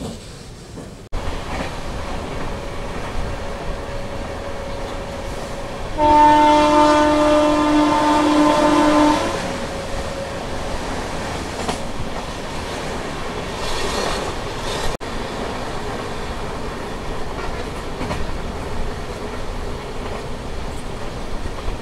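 Express passenger train running at speed, heard from inside a coach: steady rumble with wheels clattering over the rail joints. About six seconds in, a train horn sounds for about three seconds, the loudest thing heard.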